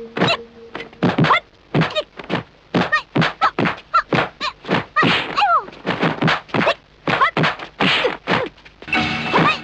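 Kung fu fight sound effects: a rapid series of punch and kick hits landing, about two to three a second, with a falling pitched cry about five seconds in.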